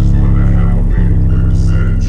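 Loud music with heavy, deep bass notes changing about once a second, played through a car audio system's Bulk Audio subwoofer and mid-range speakers and heard inside the car's cabin.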